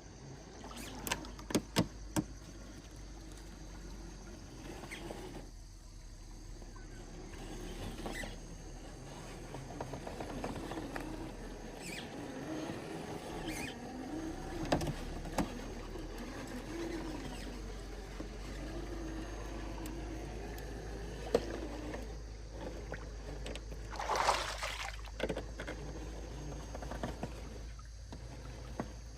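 Traxxas TRX4 scale RC crawler with its 550 brushed motor and gearbox whining, the pitch rising and falling with the throttle as it crawls. Sharp clicks and knocks from the truck on rock, mostly near the start, and a short louder rush about 24 seconds in.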